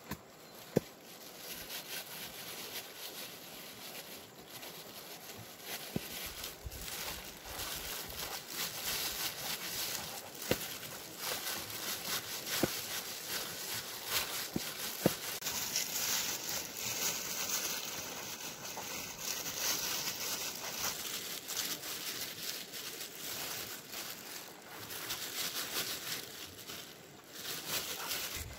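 Steady crackling from a wood cooking fire, with a handful of sharp snaps spread through it.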